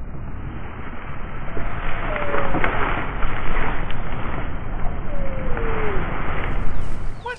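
Wind buffeting the microphone in strong gusts, a loud rumbling rush, with two faint falling whistles heard through it.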